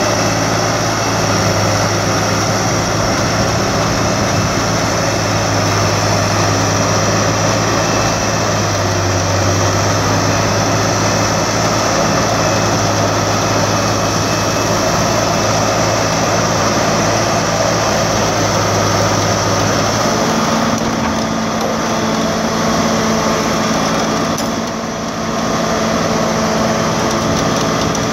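Heavy tow truck's diesel engine running steadily under winching load while its cables pull a tipped-over Cat 963C track loader back upright; the engine note changes about twenty seconds in.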